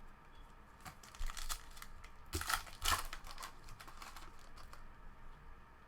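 Trading cards being handled and flipped through: a run of light clicks and rustles, loudest between about two and three seconds in.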